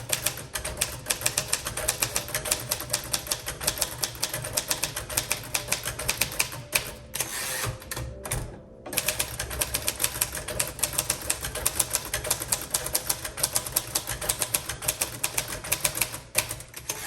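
1939 Royal Aristocrat manual portable typewriter being typed on at a steady pace: a quick run of key strikes, several a second, with a couple of short pauses about halfway through.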